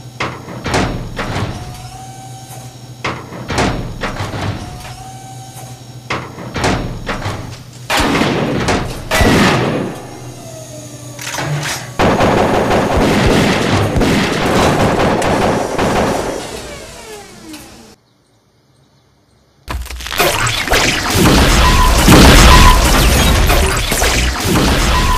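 Film sound effects for a heavy walking combat robot: regular metallic footfalls with a short mechanical whine between steps over a low hum, then a sustained burst of rapid gunfire from its arm gun. After a brief silence, a loud explosion with a long rumble.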